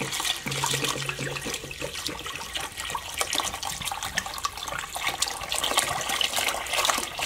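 Water from a kitchen faucet pouring in a steady stream into a stainless steel stockpot, splashing as the pot fills.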